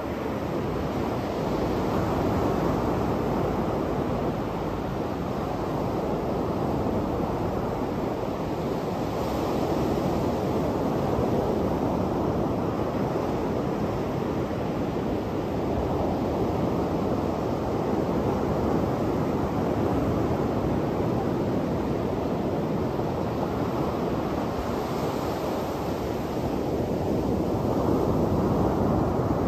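Ocean surf breaking on a sandy beach and washing up the shore: a continuous rush that swells and eases with each set of waves.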